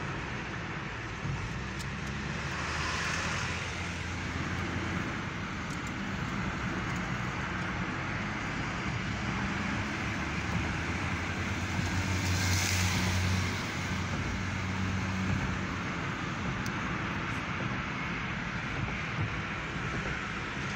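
Road noise inside a moving car: steady engine hum and tyre rumble from cruising on a highway. The noise swells louder twice, briefly about three seconds in and most strongly about twelve seconds in.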